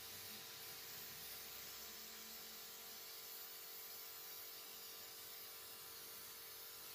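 Gravity-feed air spray gun hissing steadily as it sprays yellow paint onto a sheet-metal thresher hopper, with a faint steady hum underneath.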